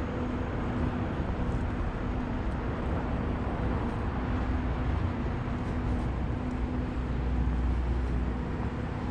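City street traffic noise: a steady engine hum over the wash of passing vehicles, with a deeper rumble swelling up about seven seconds in.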